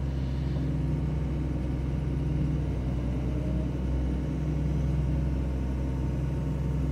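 John Deere 2054D excavator's diesel engine running steadily at raised RPM, heard from inside the cab, while the upper structure swings on its replaced swing motor.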